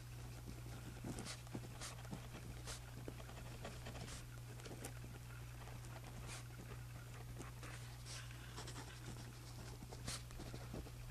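Pen writing on journal paper: irregular scratches and short strokes, over a steady low hum.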